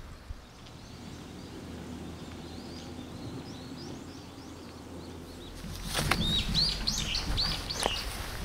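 Small birds chirping, a quick run of short high notes starting about six seconds in, over a steady low hum.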